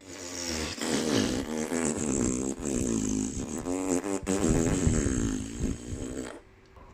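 Space-probe plasma-wave recording made audible: warbling tones that slide up and down in pitch over a steady high hiss. It cuts off sharply near the end.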